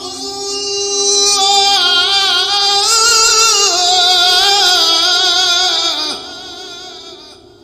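Male Qur'an reciter's voice holding one long, drawn-out melodic note in tajweed style, with wavering ornaments and shifts in pitch. The note ends about six seconds in and its amplified echo trails off after it.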